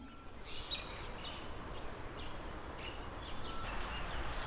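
Faint outdoor background noise with a low steady rumble and scattered short, high bird chirps.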